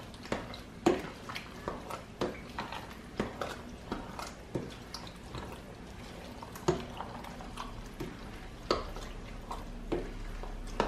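Black slotted spoon stirring okra stew in a stainless steel pot: irregular knocks and scrapes of the spoon against the pot's sides, with wet sloshing of the okra and broth.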